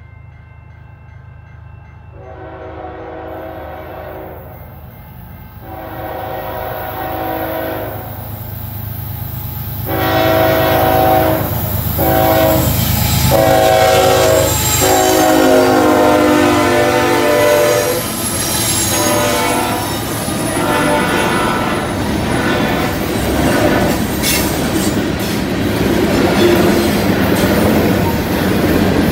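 CN diesel freight locomotives sounding a multi-note air horn in a series of long and short blasts for a road crossing, getting louder as they approach, with the engines running under them. The horn stops about 18 seconds in, and the freight cars roll past close by with loud wheel clatter and some wheel squeal.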